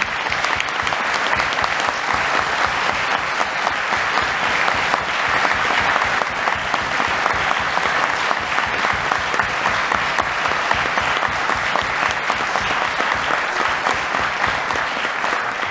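A congregation applauding: many people clapping at once in a dense, steady patter, beginning to die away near the end.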